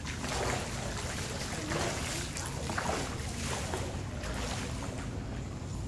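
Water splashing in a swimming pool from a child's freestyle arm strokes and kicks, a splash every half second to a second. A low wind rumble on the microphone runs underneath.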